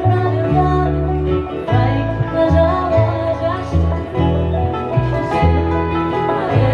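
Acoustic string band playing a country tune, plucked strings over a bass line that steps between notes about twice a second.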